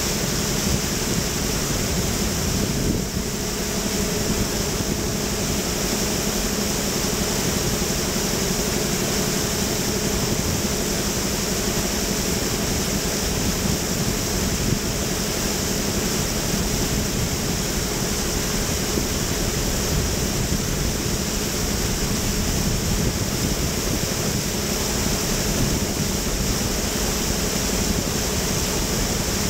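Motorboat engine running at a steady drone, with wind and water rushing past.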